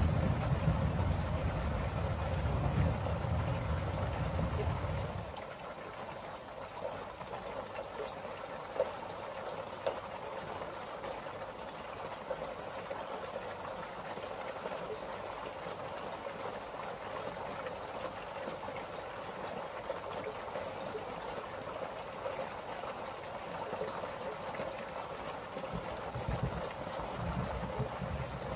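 Steady hiss of rain during a thunderstorm, with a deep rumble of thunder under it for the first five seconds that stops abruptly.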